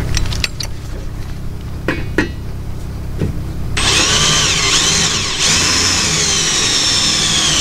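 Cordless drill boring into the metal frame of a solar panel. A few knocks and clicks come first; about four seconds in, the drill starts with a loud, high whine that wavers up and down in pitch as the bit cuts.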